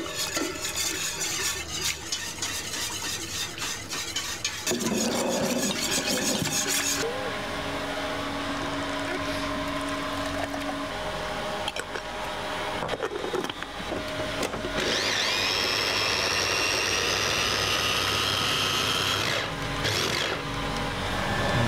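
A wire whisk clatters and scrapes in a steel pot as liquid is poured in. Later, about two-thirds of the way through, a food processor motor spins up with a rising whine and runs steadily for a few seconds, puréeing its contents.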